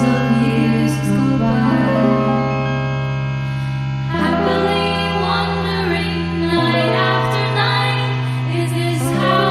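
Background song: held chords that change every two to three seconds, with a singing voice in places.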